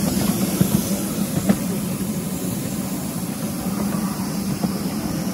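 Miniature railway train running, a steady low drone with a single click about a second and a half in.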